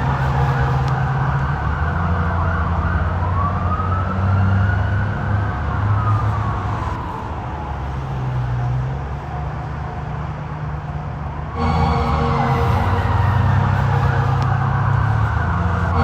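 Police siren wailing in slow sweeps that rise and fall in pitch, over a low steady rumble. It grows fainter through the middle, then comes back suddenly louder about three-quarters of the way through.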